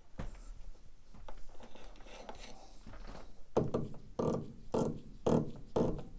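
A steel jaw puller's forcing screw is turned by the fingers against a brushless motor's shaft, with faint clicks at first. A few seconds in, short rubbing sounds begin, about two a second, each one a twist of the screw.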